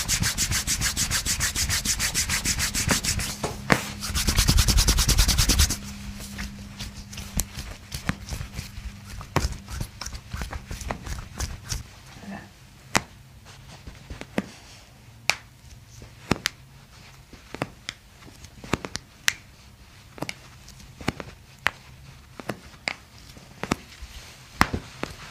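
Massage work on a patient's body: a fast, even rhythm of strokes for about six seconds, then scattered sharp clicks and taps.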